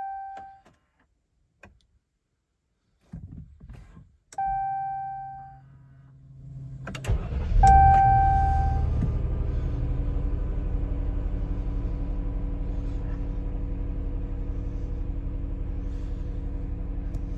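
Jeep Cherokee Trailhawk cold-started on a portable jump pack: a dashboard chime, a few faint clicks, a second chime, then the starter cranks briefly about seven seconds in and the engine catches with a third chime. It then idles steadily and stays running.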